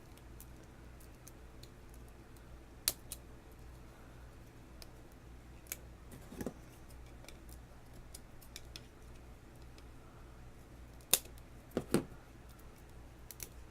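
Fingernails picking and scraping at the plastic wrap on a toy package: faint scattered clicks and taps, with a few sharper clicks spread through, over a low steady hum.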